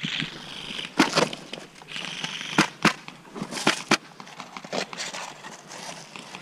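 Sharp clacks, several in pairs about a quarter of a second apart, over the rustle of an airsoft player shifting his gear and rifle behind cover.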